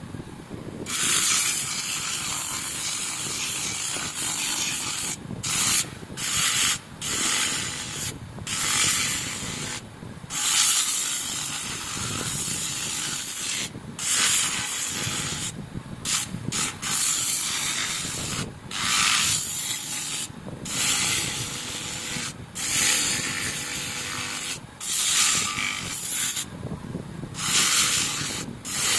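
Sanding on a drum brake cover: a scraping hiss in stretches of one to three seconds, broken by short pauses as the abrasive is lifted and set back on.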